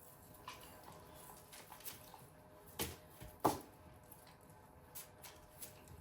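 Quiet kitchen handling sounds: scattered soft taps and clicks, with two sharper knocks a little under three seconds in and about half a second later.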